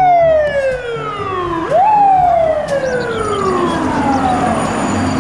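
Fire truck siren winding down in pitch, then rising quickly about two seconds in and winding slowly down again.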